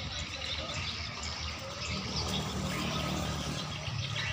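Water sloshing and splashing as a small wooden boat is pushed out through floating water hyacinth with a long wooden pole, with light bird chirps. A low hum comes in about halfway through.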